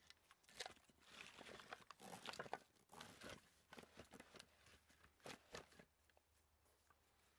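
Split birch firewood being bound with a rope: the rope rasping as it is pulled tight around the logs, the logs knocking and shifting, and frosty leaves crunching underfoot, in a run of irregular scrapes and sharp clicks.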